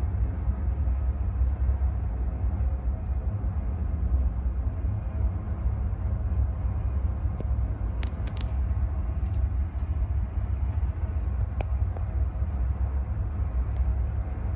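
Wind buffeting the microphone on a ship's open deck: a steady low rumble that wavers quickly in level, with a few faint ticks.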